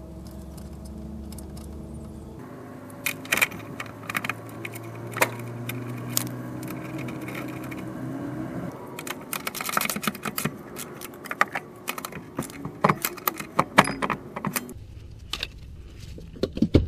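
Rapid, irregular metallic clicking and clattering of hand tools and metal parts being handled during rear wheel bearing replacement work, thickest in the second half.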